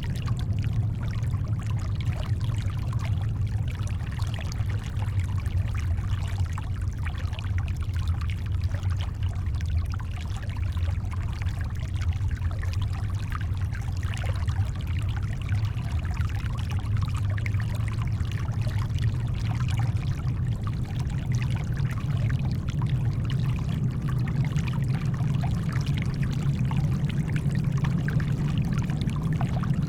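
Shoreline water trickling and splashing over a steady, deep rumble of brown noise.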